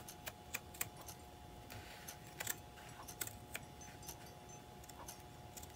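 Scissors cutting through painted fabric: irregular small snips and clicks of the blades, with a faint steady hum underneath.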